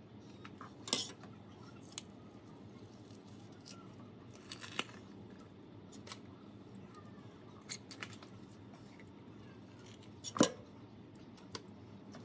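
Scattered clicks and knocks of whole mullet and kitchen shears being handled in a stainless steel sink, the loudest knock about ten seconds in, over a faint steady hum.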